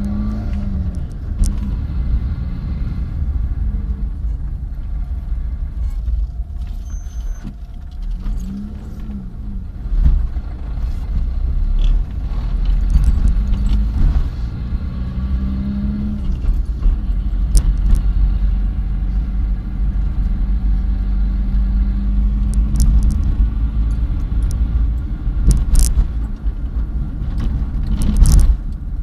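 Car driving, heard from inside the cabin: a steady low engine and road rumble, with the engine note rising and falling a few times. Small clicks and rattles sound throughout, and a few sharper knocks come near the end.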